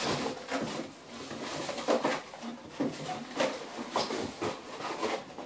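Cardboard box and packing being opened and handled by hand: irregular rustling and scraping with a few sharp knocks.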